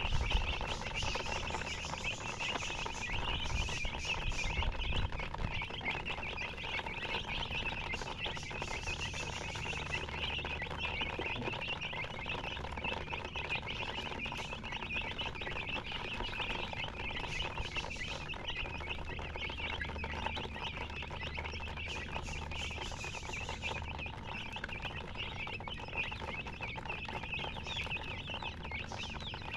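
Chickens chirping: many short, high peeps overlapping without pause.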